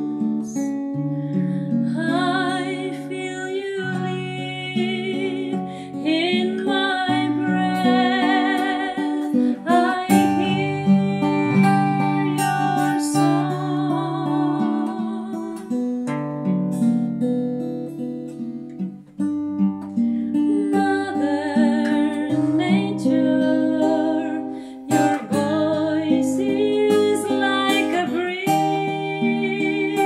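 Acoustic song: an acoustic guitar played by hand with a woman singing over it, her voice coming in about two seconds in and wavering with vibrato on held notes.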